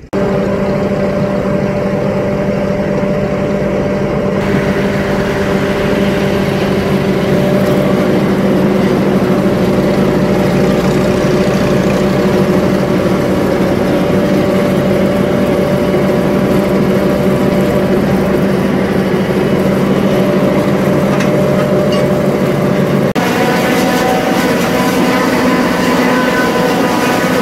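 Farm tractor engine running steadily under working load during silage making, with a hiss joining it about four seconds in. Near the end the tone shifts abruptly to a different pitch.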